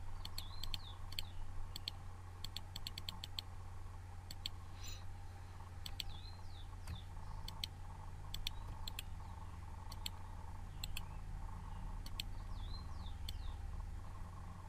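Computer mouse clicking: single clicks and a quick run of clicks, over a steady low electrical hum. A few faint high chirps sound in the background.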